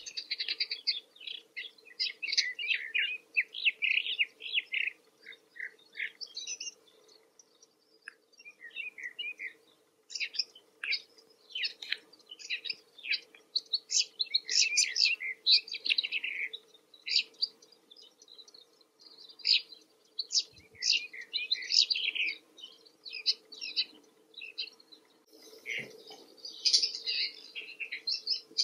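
Male woodchat shrike singing: a long, varied run of short, high chirping and warbling notes in quick phrases, with a brief lull a few seconds in.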